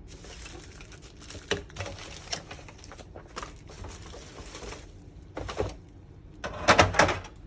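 Plastic diorama parts and packaging being handled: crinkling and rustling with scattered clicks, then a quick run of loud plastic knocks and clacks near the end.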